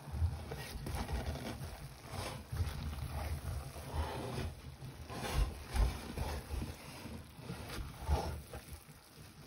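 Wooden spatula stirring and turning cooked biryani rice and chicken in a metal pot, with irregular scrapes and soft knocks. The layers are being mixed after their slow steaming on low heat.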